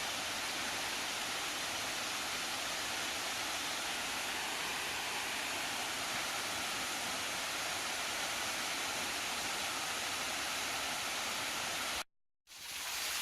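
Small waterfall rushing steadily, a continuous hiss of falling water. It drops out for a moment near the end, then resumes.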